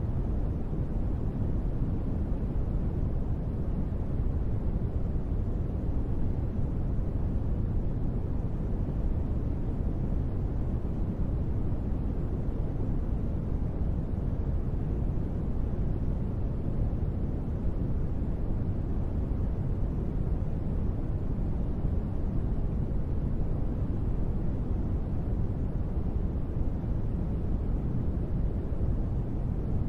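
Steady noise track sold as white noise for sleep, a deep, even rush that stays unchanged throughout.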